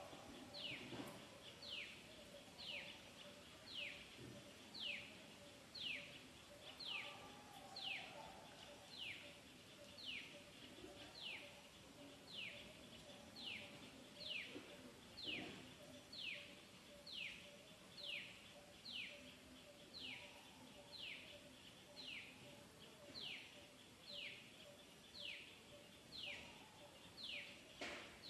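A bird calling over and over, a quick high note sliding downward, repeated at a steady pace of about three every two seconds, with a faint low repeated note beneath it.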